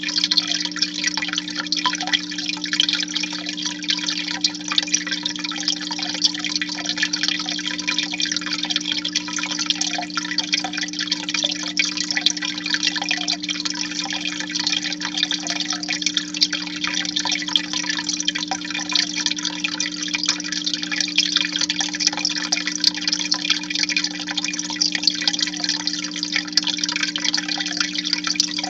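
Aquarium filter outflow splashing and trickling steadily into the tank water, with a steady low hum underneath.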